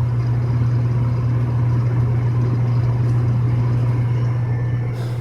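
American Standard gas furnace's fan motor running with a steady low hum just after the burner has shut off, seconds after lighting. A light click comes near the end.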